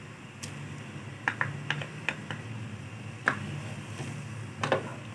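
Serving plate and wooden spoon tapping against a cooking pot as chopped tomatoes and green chillies are tipped into simmering chickpea curry and stirred: scattered light clicks and knocks over a low steady hum.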